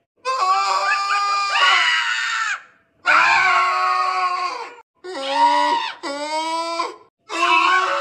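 Strained, struggling screams from a voice, used as a meme sound effect: a run of five long pitched cries with short breaks between them, the cries bending down in pitch as they trail off.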